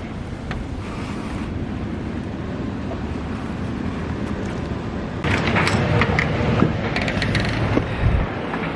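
Wind buffeting the microphone: a steady rushing rumble that turns louder and gustier, with crackling hits, about five seconds in.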